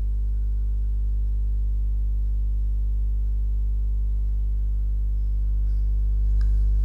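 Steady electrical mains hum, a low buzz with a stack of overtones, unchanging throughout and slightly louder near the end.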